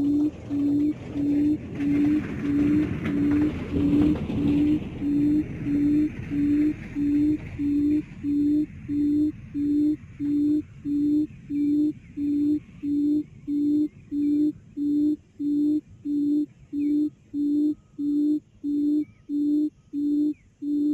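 A recorded quail call played through a speaker as a trapping lure: a short, low hoot repeated at a very even pace, a bit more than one a second, all at the same pitch. A few seconds of rushing noise sound under it near the start.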